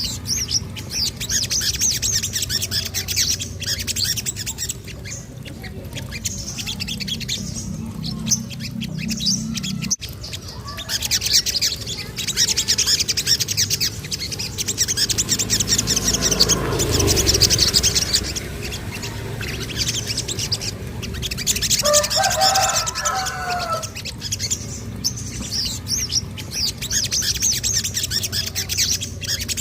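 Sogon (little spiderhunter) calling in fast, high, trilled chirps in repeated runs. A lower, warbling call breaks in for about two seconds just past twenty seconds in.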